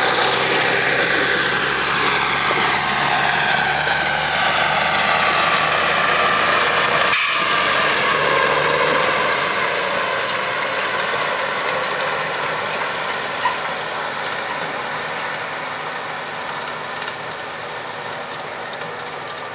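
Claas Jaguar 960 self-propelled forage harvester running at work, chopping triticale and blowing it into a trailer driven alongside by a tractor: a steady heavy machinery drone with high whining tones that slowly slide in pitch. A sharp click comes about seven seconds in, and the sound grows gradually quieter over the second half.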